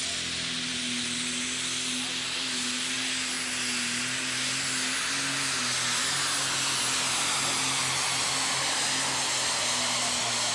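Super stock pulling tractor's turbocharged diesel engine at full power, dragging the weight-transfer sled down the track. A high, steady turbo whine sits over the engine noise, and the sound grows a little louder about halfway through.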